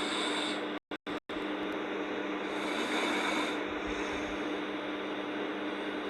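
A sleeping person snoring and breathing slowly, one breath every three to four seconds, over a steady humming background noise. The sound cuts out twice, briefly, about a second in.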